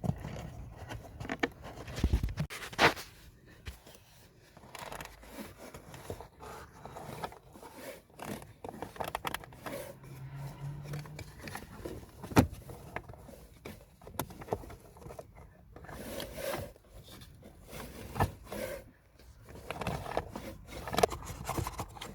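A new cabin pollen filter being worked and slid into its plastic housing: on-and-off scraping and rustling of the filter against plastic, with a few sharp knocks.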